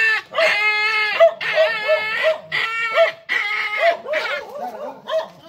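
A frightened dog crying: a run of high, wavering wails with short yelps in between, the distress of a dog afraid of being vaccinated.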